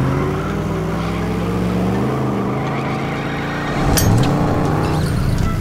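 Cartoon monster-truck engine sound effect revving, its pitch rising and falling. A sharp crash comes about four seconds in.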